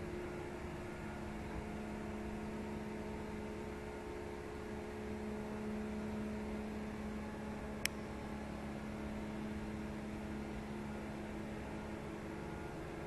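Yacht's inboard engine running with a steady hum. A single sharp click sounds about eight seconds in.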